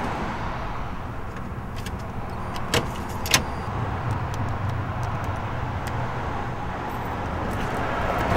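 Steady low rumble of street traffic ambience, with two sharp clicks close together about three seconds in.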